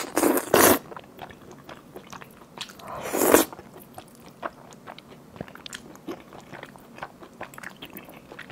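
A person slurping noodles coated in a thick, sticky sesame-paste sauce, then chewing them. There are two loud slurps in the first second and a longer one that builds to about three and a half seconds in, then soft wet chewing clicks, close to the mic.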